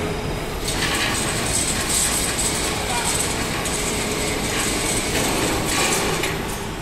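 Mechanical fence mesh welding machine running, a steady clatter and rattle of its moving parts, with a few louder surges of high hiss.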